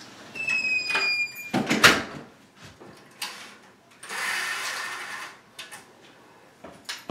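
A front door being shut: a high squeak about a second long, then a loud latching knock. A few seconds later the venetian blind on the door's window is let down with about a second of rattling slats, followed by a few small clicks.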